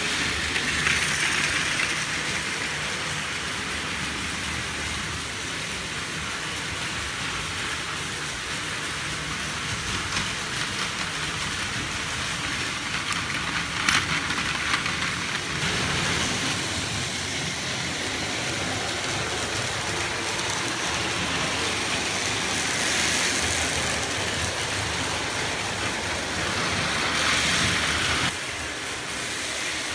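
Battery-powered Plarail toy train, the Seibu 9000 series, running on blue plastic track: the small motor whirrs and the wheels rattle on the track joints in a steady hum. It runs a little slow, its batteries due for changing. There is a sharp click about halfway through, as the train passes close by.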